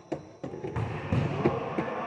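The echoing noise of an indoor futsal game in a gymnasium: two sharp knocks at the start, then from under a second in a reverberant wash of distant players' activity.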